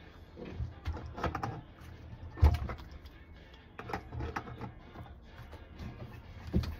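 Adjustable wrench clicking and knocking against the metal pressure relief valve fitting as it is threaded onto a mini tank electric water heater: a handful of irregular metal clicks, the loudest about two and a half seconds in.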